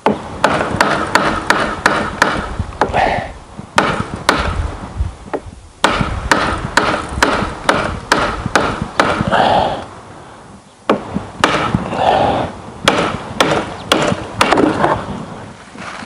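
A rod jabbed again and again down the feed chute of a garden shredder, knocking against a branch jammed in the rotor to free it. Runs of sharp knocks, several a second, with a short pause about two-thirds of the way through.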